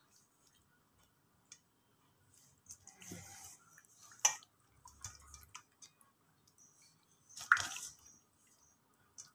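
Wet squelching and smacking of a hand rubbing marinade into a raw whole chicken, with two sharp wet smacks, one about four seconds in and a louder one about seven and a half seconds in.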